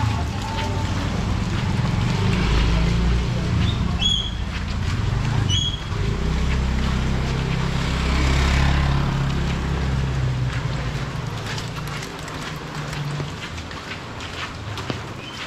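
A motor vehicle's engine running close by, swelling as it passes about halfway through. Two short high chirps come about a second and a half apart.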